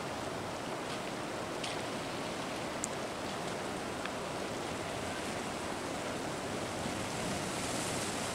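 Steady rush of a swollen, muddy stream in flood.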